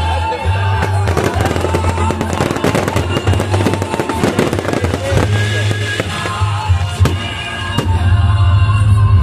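Fireworks crackling in a dense rapid string of sharp pops over loud music with a heavy bass line. The crackling thins out about halfway through to a few separate pops.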